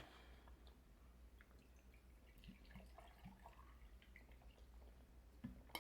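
Near silence: a low steady hum with a few faint, small clicks and taps.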